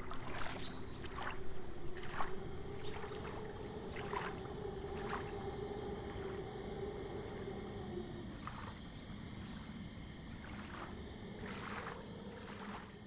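Water splashing softly in short, irregular strokes over a low held droning tone. The drone breaks off about two-thirds of the way through, returns, and fades at the end.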